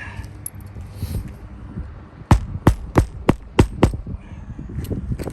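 A hammer driving roofing nails into asphalt shingles: about six quick sharp strikes in a row, from a little past two seconds to about four seconds in, over a low steady rumble.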